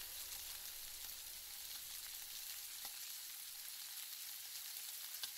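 Beef steaks and king oyster mushrooms sizzling quietly and steadily in a hot frying pan, with a couple of faint ticks.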